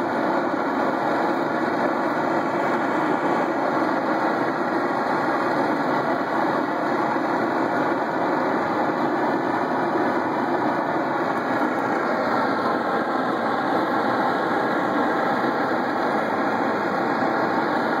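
Wooden tree-trunk blast furnace blowing a long horizontal jet of flame out of a side opening: a loud, steady rushing noise of burning gas at an even level.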